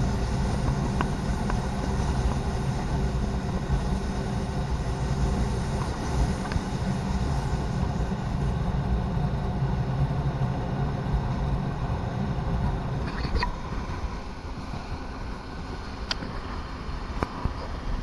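ALn 668 diesel railcar running along the line: a steady engine drone over the rumble of wheels on rails, easing slightly about two-thirds of the way through, with a few sharp clicks near the end.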